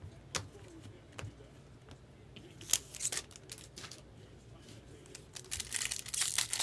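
A foil trading-card pack being handled and torn open: a few sharp clicks and snaps, then a thick run of crinkling and tearing near the end.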